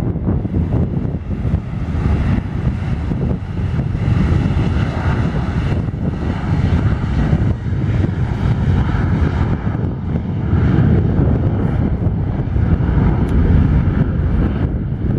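Boeing 737-700's CFM56-7B turbofan engines at takeoff thrust during the takeoff roll: a loud, steady rumble with a faint high whine running through it.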